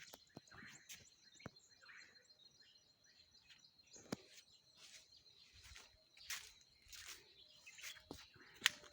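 Faint birds chirping and calling in scattered short notes, over a steady thin high-pitched tone, with a few sharp clicks.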